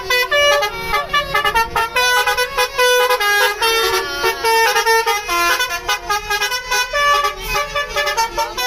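Bus 'telolet basuri' musical air horn playing a fast melody, several pitched tones sounding together and stepping from note to note a few times a second without a break.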